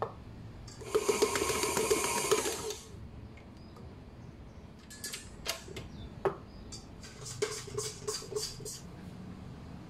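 KitchenAid Artisan stand mixer kneading wholemeal bread dough with its dough hook for about two seconds, then stopping. It is followed by scattered clicks and knocks of the stainless steel bowl and hook being handled.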